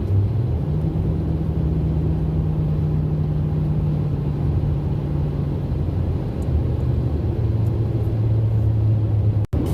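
Motor vehicle running: a steady low drone with engine hum that shifts pitch about a second in and again near the end, then cuts off abruptly.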